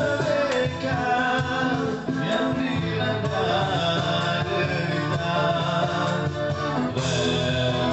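A busker band playing music with a male voice singing.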